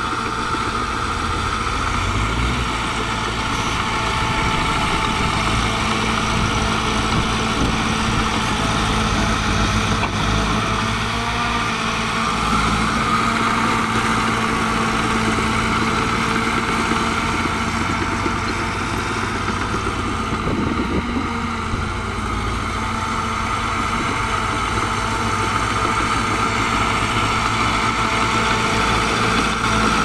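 Shantui crawler bulldozer's diesel engine running steadily as the blade pushes a mound of soil.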